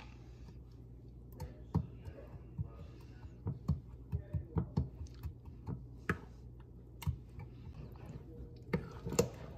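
Metal spoon stirring thick rice-and-yogurt batter in a glass bowl, clinking against the glass in irregular sharp clicks, several a second through the middle, with a couple of louder knocks near the end.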